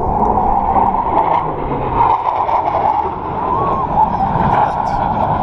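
Steady roar of jet engines from fighter jets flying in the distance.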